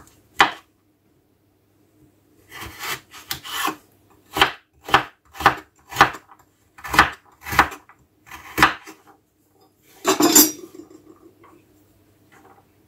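Kitchen knife chopping a carrot on a wooden cutting board: a pause, then a run of short cuts about twice a second, and one longer scraping stroke about ten seconds in.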